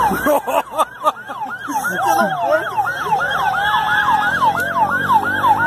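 Several emergency-vehicle sirens sounding at once in a fast up-and-down yelp, overlapping out of step. From about four seconds in, a heavy vehicle's engine hum joins underneath.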